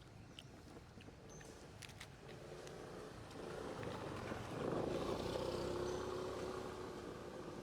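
A low motor hum, like a passing vehicle's engine, swelling from about two seconds in, loudest just past the middle, then fading; a few faint clicks come earlier.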